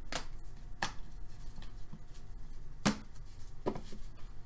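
Trading cards being handled and flipped through in the hands: four sharp clicks of card against card, spaced irregularly, with a faint steady hum underneath.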